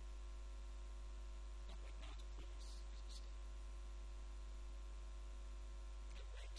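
Steady electrical mains hum at about 50 Hz with a ladder of steady overtones, running without change.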